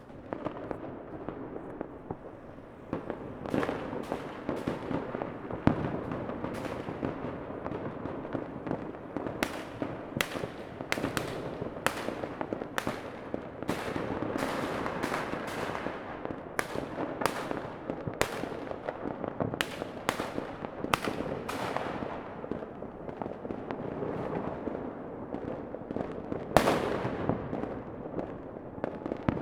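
Fireworks going off: a dense, irregular run of sharp bangs over a steady crackle. The two loudest bangs come about six seconds in and near the end.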